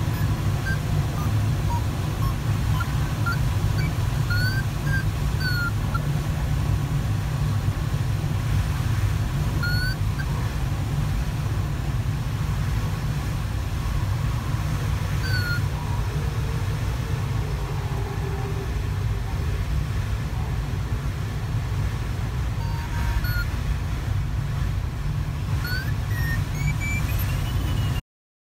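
Steady low rush of airflow around the cockpit of a Sparrowhawk ultralight glider in flight, with no engine, dotted with a few short high chirps. It cuts off suddenly near the end.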